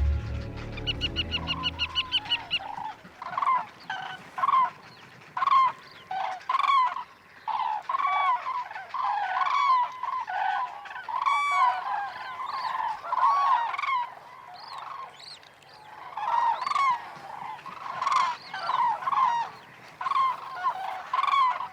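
A flock of common cranes calling, many loud trumpeting calls that rise and fall and overlap one another. A low rumble with fast ticking lasts through the first couple of seconds.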